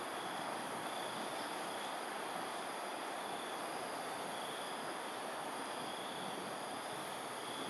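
Steady outdoor ambience: an even hiss with faint, high, continuous insect trills that swell and fade.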